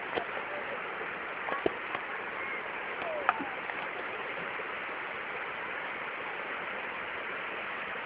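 River water rushing steadily over a rocky bed in shallow rapids. Faint voices are heard in the first few seconds, along with a few short sharp clicks, the loudest about three seconds in.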